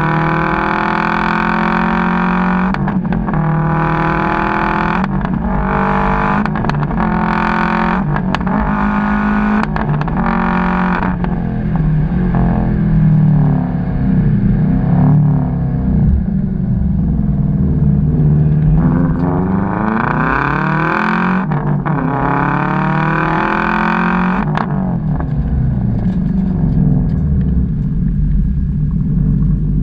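Subaru STI's turbocharged flat-four boxer engine through an Agency Power cat-back exhaust, revving. The pitch climbs and drops back several times in quick succession in the first ten seconds, falls away slowly through the middle, and climbs once more later on.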